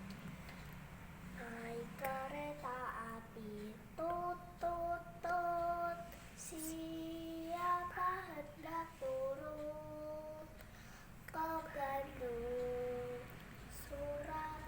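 A child singing a song, several sung phrases of held, high-pitched notes separated by short pauses.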